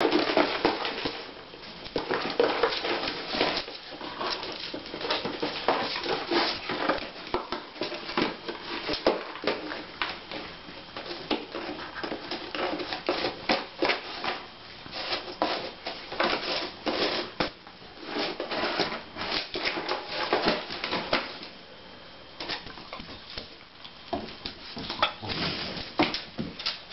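A puppy pawing and nosing at a cardboard box with treats hidden inside, with irregular scratching, knocking and scraping of the box and dogs' claws clicking on a hardwood floor.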